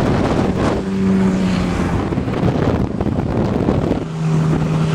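50 hp Johnson outboard motor running steadily as the speedboat is under way, with wind buffeting the microphone. The engine note drops a little about four seconds in.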